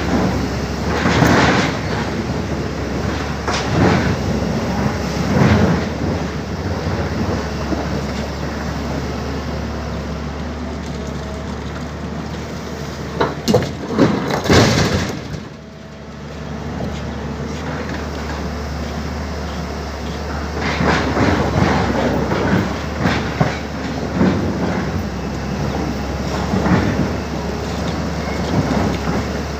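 Tata Hitachi excavator's diesel engine running steadily under hydraulic load, with repeated clattering and banging of boulders being scooped and dropped into a truck's body. The loudest cluster of bangs comes about halfway, after which the sound briefly drops.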